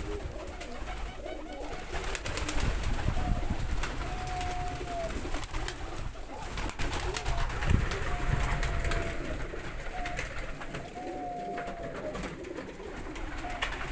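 Domestic pigeons cooing in a loft: short, level calls that repeat every second or two, each dipping slightly at the end. Low bumps and rustling come through underneath, the loudest a little past the middle.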